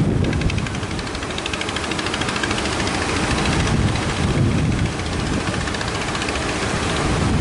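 An engine running with a rapid, even beat, over a steady rush of surf and wind noise.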